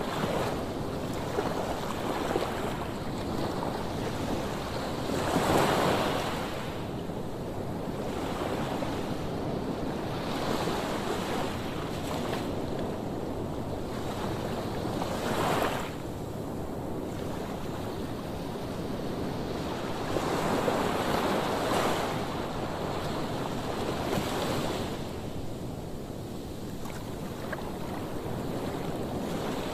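Sea waves breaking and washing onto a beach, the surf swelling louder every several seconds, with wind buffeting the microphone.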